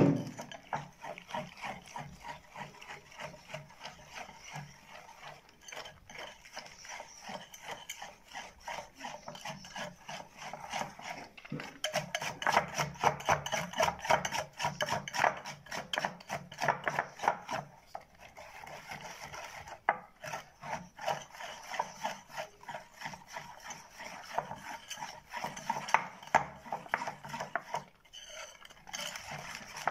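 A whisk worked by hand through thick chocolate whipped cream in a ceramic bowl, with rapid, continuous scraping and stirring strokes against the bowl. The strokes come faster and louder in stretches through the middle.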